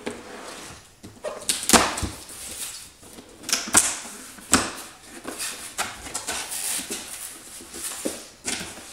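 A kitchen knife slicing through packing tape on a cardboard subwoofer box, then the cardboard flaps being pulled open, with a run of sharp scrapes and rustles. The loudest strokes come a couple of seconds in and near the middle.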